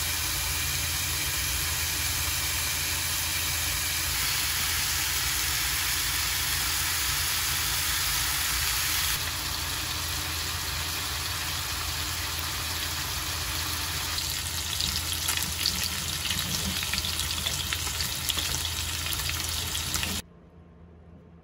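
Chunks of pork belly sizzling in hot fat in a frying pan: a steady frying hiss, with sharp crackles and spits growing more frequent in the later part as the meat browns. The sizzle stops abruptly near the end, leaving a faint low hum.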